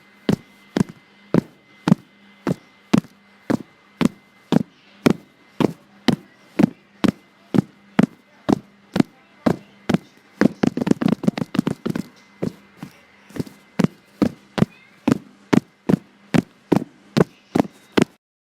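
A person's fast heartbeat picked up by a phone's voice-memo microphone: a steady run of dull thumps at about two beats a second, the fast rate of a heart beating hard from tiredness. The thumps grow louder and busier for a moment about eleven seconds in, over a faint steady hum.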